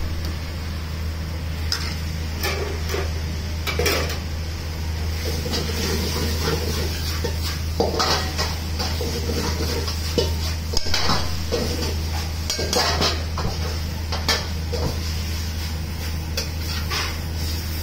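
Metal ladle knocking and scraping in a carbon-steel wok, and chopsticks clinking on a stainless-steel plate: irregular clinks and clatters, busiest in the middle. Under them a steady hum and hiss from the lit gas wok burner.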